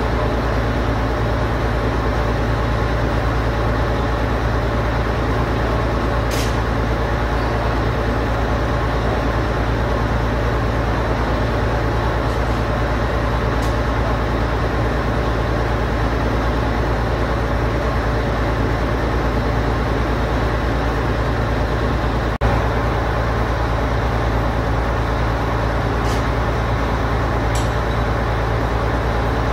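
Steady, unchanging drone of running machinery with a low hum, and a few faint metallic clicks and taps over it.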